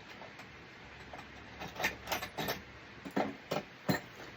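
A run of sharp, irregular clicks and knocks, about eight over two seconds starting near the middle: tools and metal parts being handled while working on a lawn mower.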